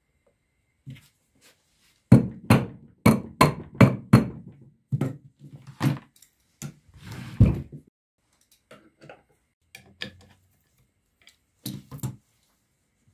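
A series of sharp knocks and thunks from a heavy electric motor being handled and set down on a workbench: a quick run of about six knocks two to three a second, a brief scrape, then a few scattered knocks near the end.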